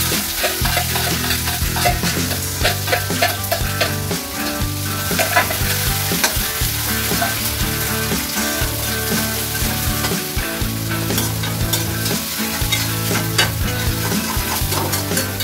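Diced onions sizzling in hot oil in a black kadai, stirred and scraped around the pan with a metal spatula, the scrapes clicking over a steady frying hiss.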